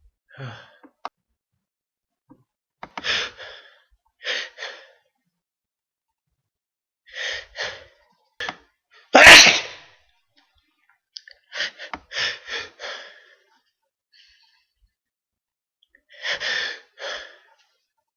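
A run of short sneezes coming in twos and threes, with one much louder sneeze about nine seconds in.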